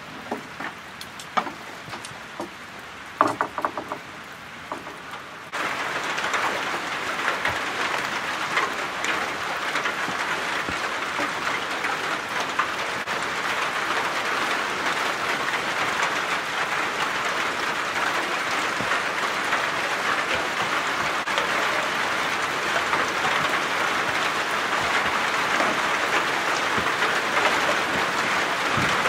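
A few rustles and sharp clicks of a plastic tent tarp being handled, then about five seconds in a steady, dense rain noise comes in suddenly and keeps going, drowning the handling sounds.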